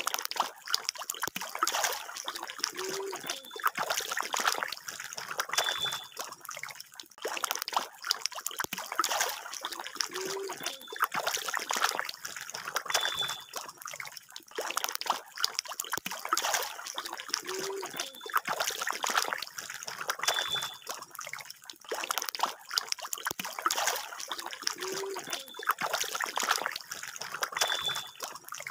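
A dense mass of hybrid magur (walking catfish) thrashing at a pond's surface: continuous, irregular splashing and sloshing of water.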